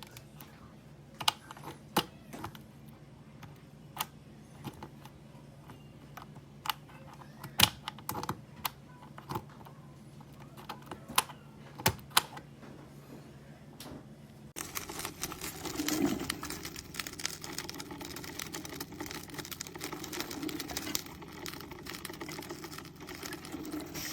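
A dozen or so scattered sharp clicks and taps. Then, suddenly, about two-thirds of the way through, a steady hissing, crackling gurgle begins: a drip coffee maker brewing, with hot water sputtering through.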